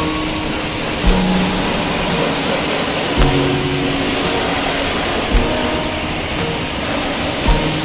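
Background music with a slow beat, a thump about every two seconds and held bass notes that change with each beat, over a loud steady hiss.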